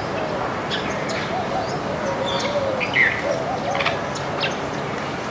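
A flock of small birds chirping: many short, scattered high chirps, the loudest about three seconds in, over a lower wavering call that runs through the first half.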